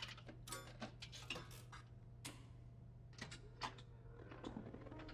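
Faint, irregular light clicks and small clinks, a dozen or so scattered across several seconds, over a steady low hum.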